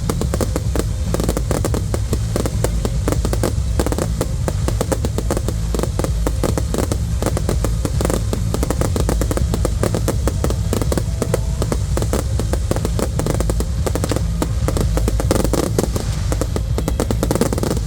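Fireworks display in a dense, continuous barrage: many rapid bangs and crackles overlapping one another with no pause, over a steady low rumble.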